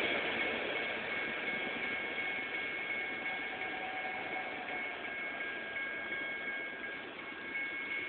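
Railroad grade-crossing warning bell ringing steadily with a high, even tone, over the fading rumble of a departing freight train.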